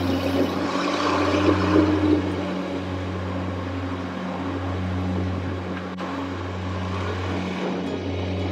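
Truck engine running steadily while the truck drives slowly, picked up by a camera mounted on the truck's nose: a low, even hum over road noise.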